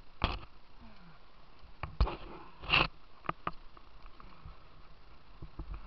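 Scattered short, sharp knocks and scrapes, with a short sniff a little under three seconds in.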